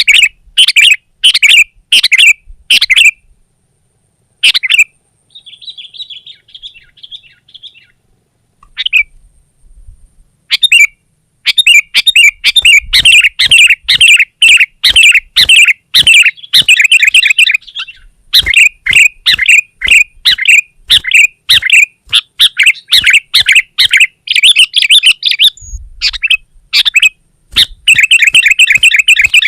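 Sooty-headed bulbuls (kutilang) calling loudly in runs of short, bubbly chirps. The calls are spaced at first, with a fainter trill about six seconds in, then turn to rapid, near-continuous chattering from about eleven seconds on.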